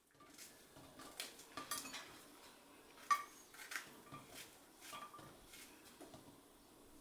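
A small kitchen knife slicing button mushrooms held in the hand, the slices dropping into a glass dish: faint, irregular light clicks and taps.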